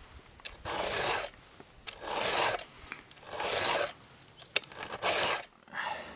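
Round file being pushed across a Husqvarna chainsaw chain's cutter tooth to sharpen it. It gives five rasping strokes, about one every 1.3 seconds, with light clicks between them.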